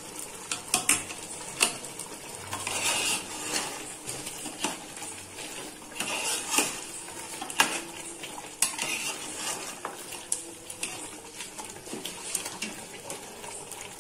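Metal spoon stirring chicken in a metal pot, scraping along the sides and bottom with irregular sharp knocks against the rim, over a faint sizzle from the chicken cooking in the pot.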